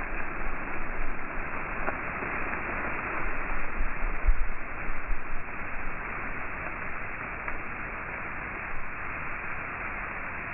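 Strong wind blowing: a steady rushing noise with gusts buffeting the microphone, heaviest in the first half and easing a little toward the end.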